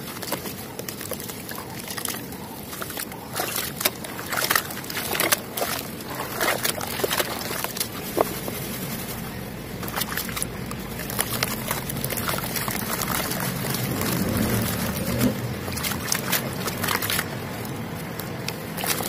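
Soft, dusty cement chunks snapped and crumbled by hand, sped up to double speed: a dense run of irregular crackling crunches and sharp snaps, with crumbs trickling and pattering down between them.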